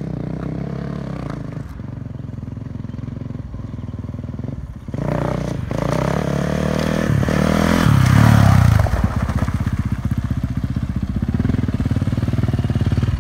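Yamaha 450 dirt bike's single-cylinder four-stroke engine running, revved up about five seconds in to its highest about eight seconds in, then dropping back to a steady run.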